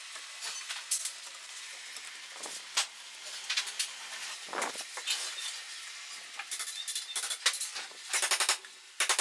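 Wood chisel cutting into a log: scattered scrapes and cracks as chips are pared away by hand, then near the end a quick run of hammer taps on the chisel.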